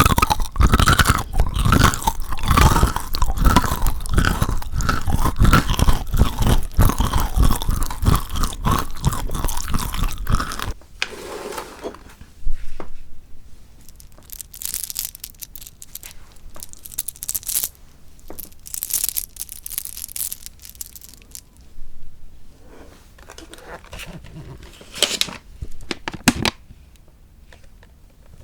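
Close-miked crunching and chewing of chocolate, dense and loud for the first ten seconds or so. It then cuts off sharply to a quieter stretch of scattered small crunches and mouth clicks.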